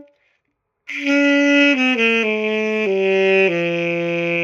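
Alto saxophone starting about a second in and playing a descending scale of about six notes, stepping lower each time and holding the last one. It shows the even tone of a correct embouchure on a Van Doren size 3 reed.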